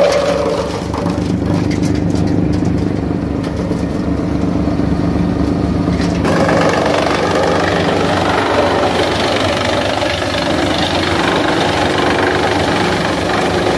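Tractor-driven wood chipper running on the tractor's power, the engine note steady throughout. From about six seconds in, green leafy branches go into the chipper and a louder rough shredding noise joins the engine.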